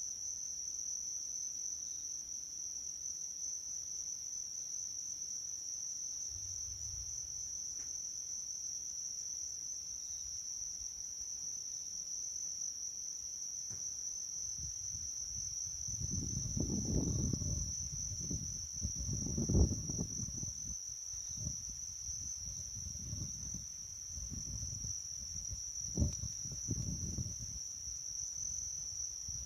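Steady, unbroken high-pitched chirring of insects in the evening. In the second half, irregular low rumbling comes and goes, with two sharp bumps.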